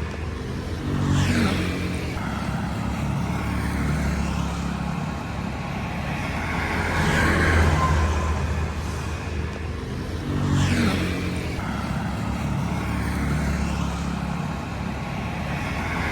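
Road traffic: vehicle engines running steadily, with vehicles passing every few seconds.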